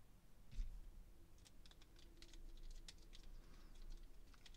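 Faint, scattered small clicks of a screwdriver bit and a small body screw against the handle of a Spyderco Manix 2 Lightweight folding knife, with a soft bump about half a second in. The screw is being started but has not yet caught its thread.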